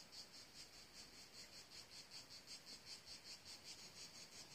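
Faint, high-pitched insect chirping in a steady pulsing rhythm, about five chirps a second.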